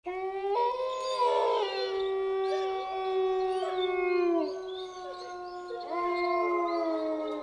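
A chorus of wolves howling: several long, overlapping howls that hold their pitch, slide down as they end, and give way to a new howl rising in.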